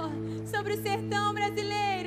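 Live worship music: a woman singing a melody over a band holding a sustained chord, her phrase ending in a falling note near the end.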